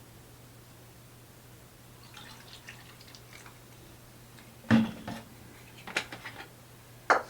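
Kitchen dishes being handled while baking: faint liquid splashes and clicks, then three sharp knocks of a cup or bowl, the first with a short low ring. A steady low hum runs underneath.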